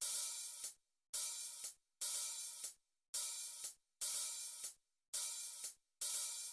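Cymbal or hi-hat hits in a music track, repeating about once a second. Each one rings for about three-quarters of a second and is cut off sharply, with dead silence between hits.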